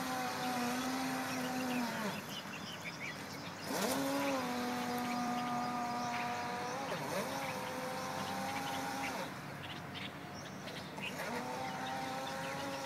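Electric motor of a Hobbyking Princess RC speedboat running with a steady whine. The whine drops off about two seconds in, climbs back a couple of seconds later, dips briefly, cuts out for about two seconds and comes back near the end as the throttle is eased and opened. Birds chirp faintly over it.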